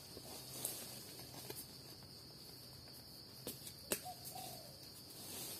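Steady high-pitched drone of insects in the forest, with a few sharp clicks, the loudest about four seconds in, and a short bird call just after it.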